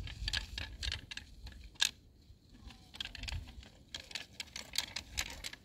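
Cylindrical stone roof roller dragged by a rope across a flat earthen roof, rumbling low with irregular crackling and clicking as grit and small stones are crushed under it: the packed-earth roof being compacted to seal it.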